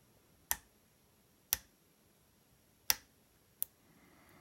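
Four sharp, separate clicks from a lock pick working the pins of an American 1100 series padlock during single-pin picking: pin clicks felt and heard as the pins are pushed, here on pin 2.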